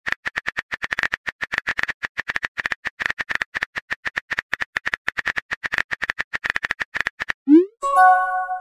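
Rapid keyboard-tap clicks of a texting app's typing sound effect, several per second, as a message is typed letter by letter. Near the end the typing stops and a short rising swoosh and a bright chime follow as the message is sent.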